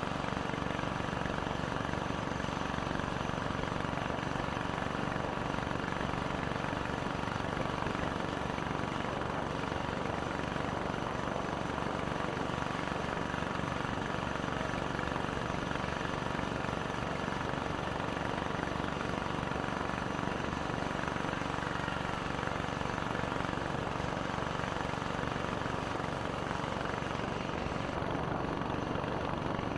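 Boat engine running steadily at an even pace.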